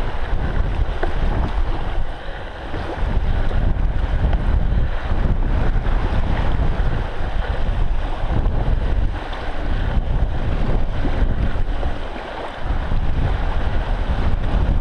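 Strong wind buffeting the microphone, a heavy low rumble, with small lake waves washing onto the sand. The noise dips briefly about three times.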